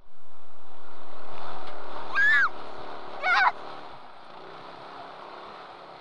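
Off-road trophy kart's engine and wind noise picked up through the driver's helmet microphone, a steady rush that cuts in suddenly and then slowly fades, with two short excited shouts from the driver, the second a "Yes!".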